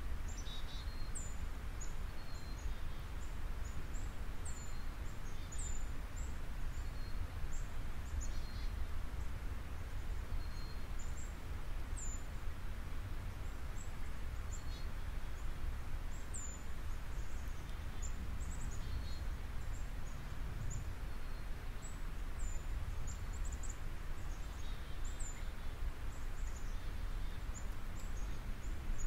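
Steady low background rumble with short, high bird chirps scattered throughout.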